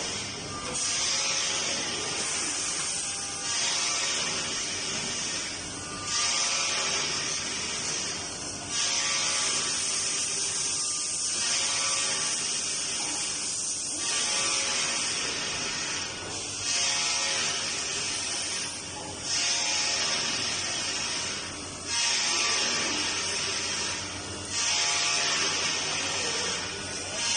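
CNC machine cutting aluminium alloy parts: a high-pitched whine of spindle and cutter, with faint steady tones under it. It comes in sections of roughly two and a half seconds, each starting abruptly after a short dip.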